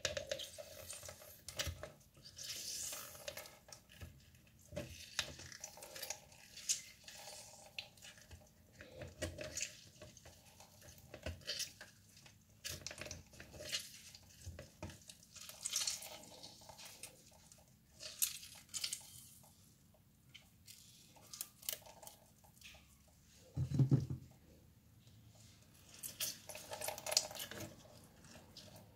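Lemon halves squeezed by hand over a metal mesh strainer set on a plastic measuring jug: juice dripping and faint squishing, with the strainer now and then clicking and scraping against the jug. One duller knock sounds about two-thirds of the way through.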